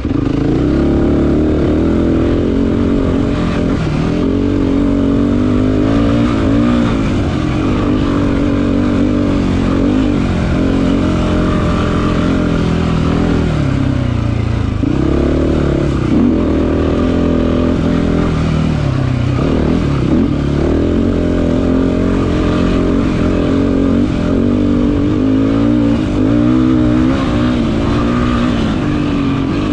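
Race quad's engine revving hard under full throttle, its pitch climbing and falling again and again as the rider shifts and backs off, with a couple of brief lifts off the throttle about halfway through.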